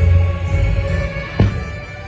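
Music playing for a fireworks show, with a heavy bass note that drops away after about half a second. A single sharp firework bang comes about a second and a half in.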